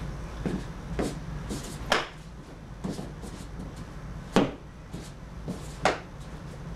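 Sharp slaps and thuds of a kenpo karate form being performed on foam mats: hands striking and checking, the uniform snapping and feet stamping, about half a dozen hits at irregular intervals, three of them louder, over a steady low hum.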